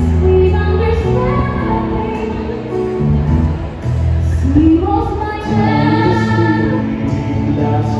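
A woman singing a slow musical-theatre duet live into a handheld microphone, amplified through stage PA speakers over a recorded backing track with sustained low notes.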